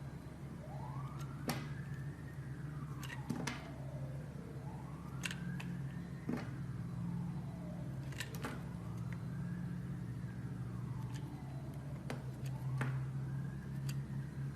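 A siren wailing, its pitch rising and falling in slow sweeps about every three and a half seconds. Sharp scattered clicks and a steady low hum run under it.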